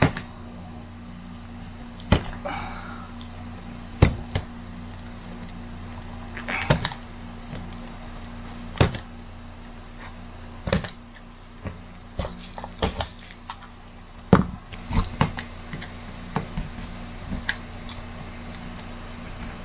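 Utility knife blade scratching and clicking along a metal straight edge as it scores peel-and-stick stainless-steel-look mosaic tile, in short irregular strokes, about one every second or two and quicker near the end. The tile is being scribed deeply so it can be snapped along the line. A steady low hum runs underneath.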